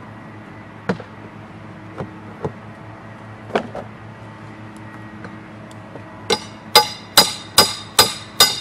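Hammer blows on a shingle ripper hooked under a cedar shake, cutting the nails that hold a damaged shake. A few scattered taps come first, then six sharp, ringing blows about two a second near the end.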